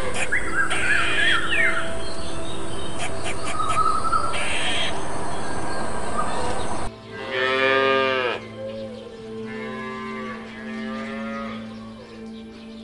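Cattle mooing: one loud, long moo about seven seconds in, followed by softer, lower calls. Before it, a steady loud hiss with short high chirps that cuts off abruptly.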